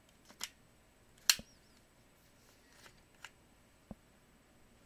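Plastic clicks and knocks from a Black & Decker DustBuster hand vacuum as its clear dust bowl is unlatched and pulled off the body. One sharp click about a second in is by far the loudest, with a few fainter clicks around it.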